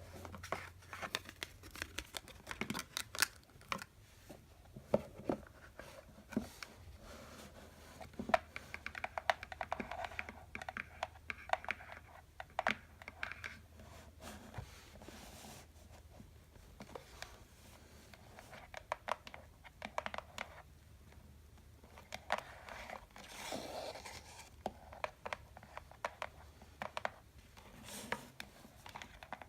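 Candy boxes being tapped by hand: quick, irregular sharp taps, with stretches of scratching and rubbing on the boxes in between.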